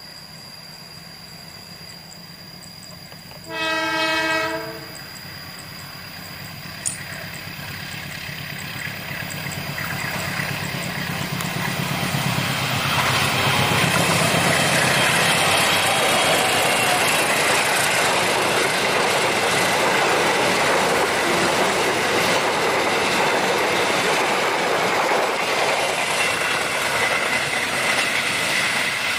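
A train horn sounds one blast lasting about a second. Then a train approaches, growing louder over several seconds, and runs past at speed with the steady noise of its wheels on the rails.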